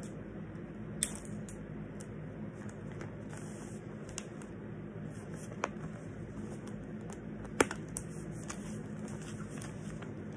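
Handling noise as a poster is taped up: a few sharp clicks and taps, the loudest a little past halfway, over a steady low room hum.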